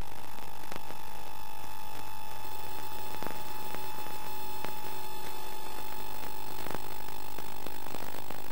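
Electrical hum and a steady high whine from VHS tape playback, with scattered faint clicks; the whine stops just before the end.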